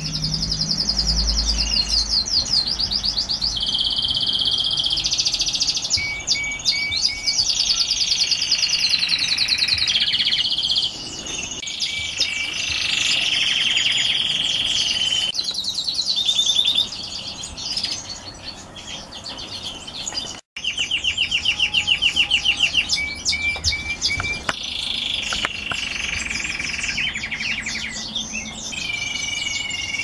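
Red grey-wing canary singing a long song of rapid trills and rolls, each trill held for a second or two before the bird switches to a new one at a different pitch. The song breaks off briefly about twenty seconds in.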